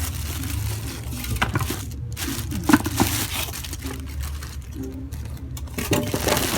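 Plastic packaging crinkling and rustling as a new rice cooker's parts are unwrapped and handled, with a few sharp clicks and knocks, the sharpest a little under three seconds in.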